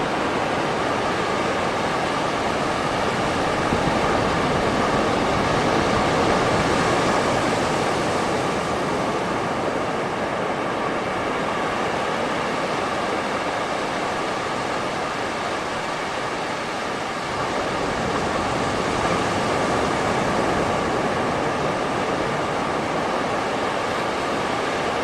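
Waves breaking and washing on a beach: a continuous rushing hiss that slowly swells and eases, strongest a few seconds in and softest around two-thirds of the way through.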